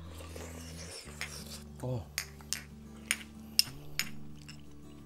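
Metal spoon clinking against a small ceramic tasting dish, six or seven sharp clicks spread over a few seconds, the loudest about three and a half seconds in, with a brief vocal sound about two seconds in. Soft background music with held chords plays under it.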